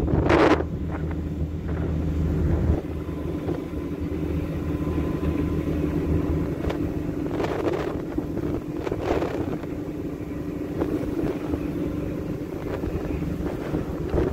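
A ship's engine running with a steady hum, its low rumble easing about three seconds in, while strong wind gusts buffet the microphone.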